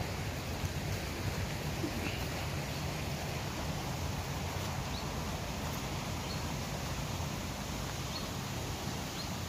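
Steady outdoor background noise along a woodland path, with a few faint, short bird chirps scattered through it.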